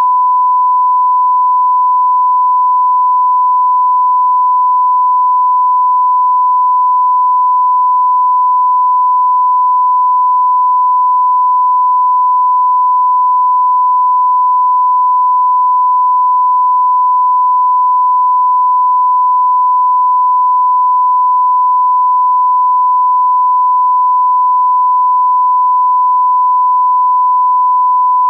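Continuous 1 kHz sine test tone, the reference tone broadcast with a TV test card: one pure pitch held unchanged and unbroken at a constant level.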